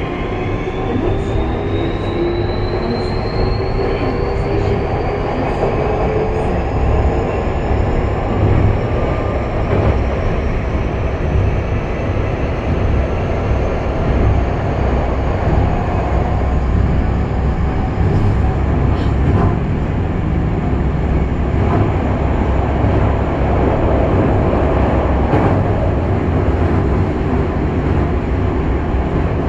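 Onboard sound of a Kobe Municipal Subway 6000 series train accelerating away from a station: the traction motors whine in several tones that rise steadily in pitch, over a heavy rumble of wheels on rail. The whine levels off after about fifteen seconds, leaving a steady wheel-and-rail roar as the train runs through the tunnel.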